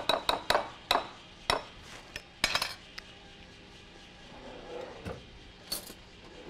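A serving spoon clinking and knocking against a salad bowl as a salad is stirred: about ten sharp clinks in the first three seconds, then a short scrape near the end.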